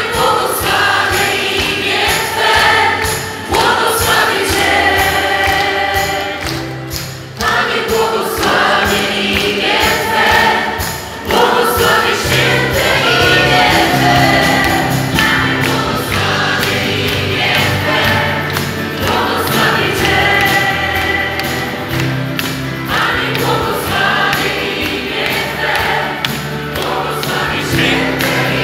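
Live Christian worship band with a group of singers performing a Polish worship song through a PA system, with bass and drums underneath the voices.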